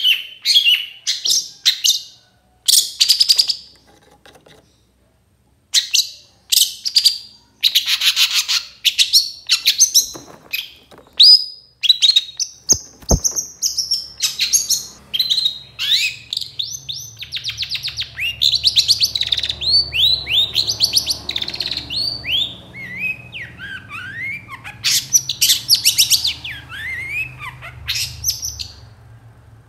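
Long-tailed shrike calling: loud, harsh chattering bursts, then a run of varied whistled notes and short falling whistles.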